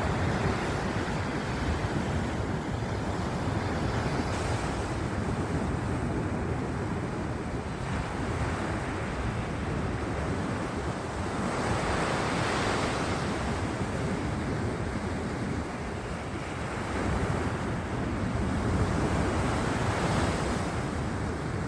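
Sea surf washing onto the shore in a continuous rush, with waves breaking louder about halfway through and again near the end. Wind buffets the microphone with a low rumble.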